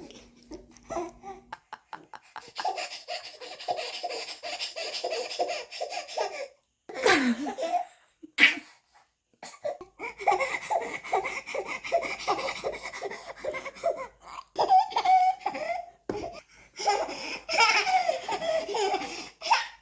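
Baby belly-laughing in repeated runs of quick, breathy laughs, with short pauses between the fits.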